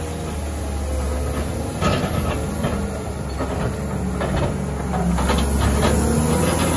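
Caterpillar 930K wheel loader's diesel engine running under load as it pushes snow with its plow blade, with repeated clanks and knocks from the blade and machine. It gets louder about five seconds in as the loader comes close.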